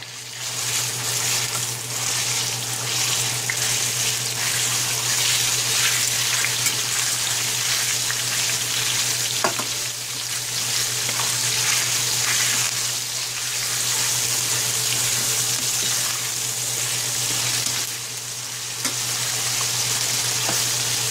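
Marinated ground pork and garlic sizzling in hot oil in a stainless steel skillet, browning, while a metal spatula breaks up and stirs the meat, scraping and clicking against the pan now and then.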